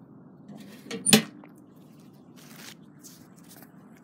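Metal roadside mailbox door being shut: a sharp metallic clack about a second in, just after a lighter knock.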